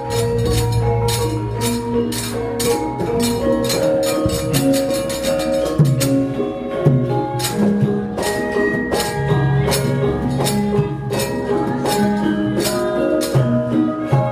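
Javanese gamelan ensemble playing: struck bronze metallophones and gongs ringing sustained notes, over a steady run of sharp percussive strokes.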